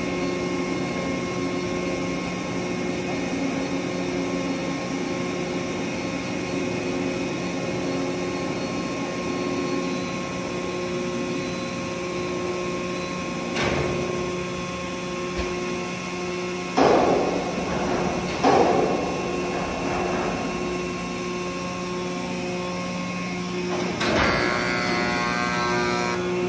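Hydraulic power unit of a 150-ton Kongo forging press running with a steady hum, broken by sharp metallic knocks and clanks about 17 and 18.5 seconds in and again near the end.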